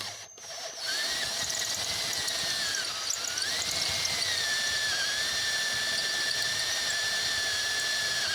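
Electric drill running under load, drilling out the stripped head-stud hole where the old helicoil was. The motor gives a steady high whine that dips in pitch about three seconds in, then recovers.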